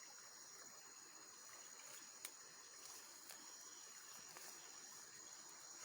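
Near silence: a faint, steady, high-pitched chorus of crickets or other insects, with a small click about two seconds in.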